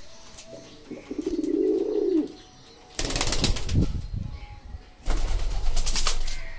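Domestic pigeons: one pigeon gives a single low, pulsing coo about a second in. Then come two spells of rapid wing flapping, each a second or more long.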